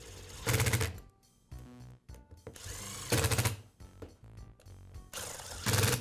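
Cordless Makita impact driver running in three short spurts, about half a second in, about three seconds in and near the end, driving the screws that hold the halves of a drill's handle together.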